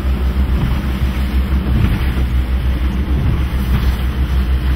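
Strong wind buffeting the microphone on an open boat, a heavy pulsing rumble, with the boat's engine humming steadily underneath.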